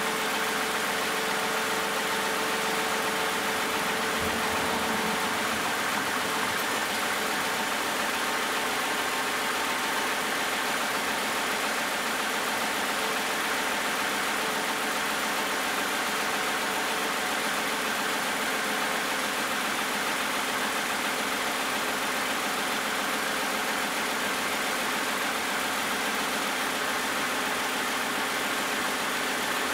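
2010 Toyota Camry's 2GR-FE 3.5-litre V6 idling steadily with the hood open, a few minutes into warming up from a cold start.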